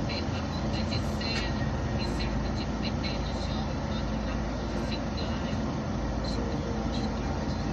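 Truck engine running steadily as the truck rolls slowly, heard from inside the cab, with scattered light clicks and rattles.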